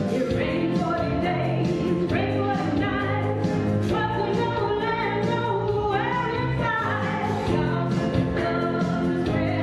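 Gospel choir singing with instrumental accompaniment over a steady drum beat.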